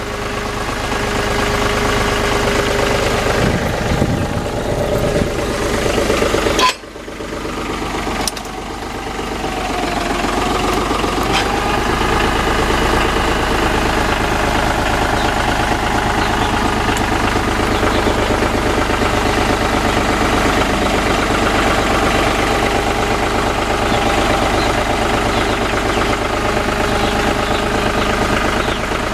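John Deere tractor engine running steadily near idle, with a sudden brief drop about seven seconds in and then a slight rise in pitch as it picks up.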